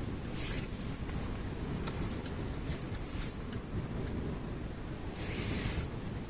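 Strong wind buffeting the microphone as a steady low rumble, with a few light ticks and a short rustling hiss near the end.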